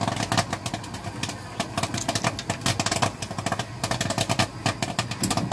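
Popcorn machine running on a street cart: a steady low motor hum under rapid, dense clicks and crackles.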